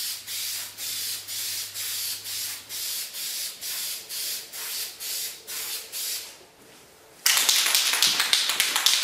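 Aerosol spray can of grey Krylon primer hissing in even pulses, about two or three a second, as it is swept back and forth over plastic model parts; the spraying stops a little after six seconds in. About seven seconds in, a louder run of rapid clicking starts.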